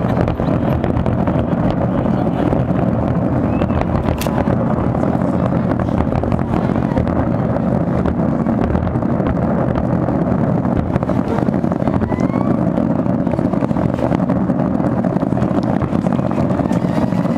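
Fireworks finale barrage: a continuous rumble of many overlapping bangs and crackles with no let-up.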